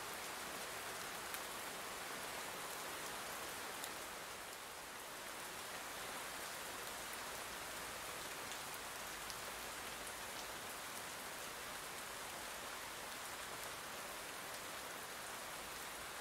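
Steady rain falling: an even hiss with a few faint single drop ticks.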